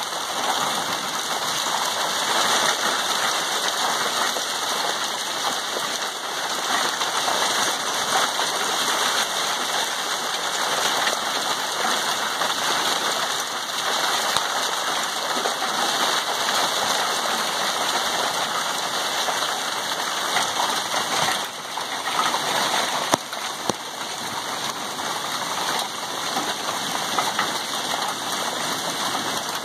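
Small hailstones falling steadily and pelting a concrete porch, a dense continuous hiss of countless tiny impacts, with a few sharper knocks about two-thirds of the way through.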